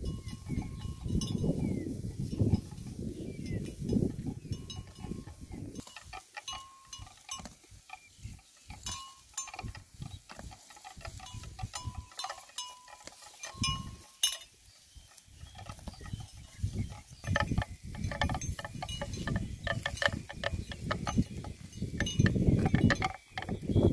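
A cow grazing, tearing up and chewing dry grass: a run of crisp crackling rips and crunches, over a low rumble at the start and again in the last few seconds.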